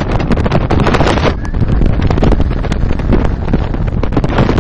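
Heavy wind buffeting the microphone of a speedboat running at speed, with irregular gusty thumps over the low, steady sound of its Suzuki 300 hp outboard motor.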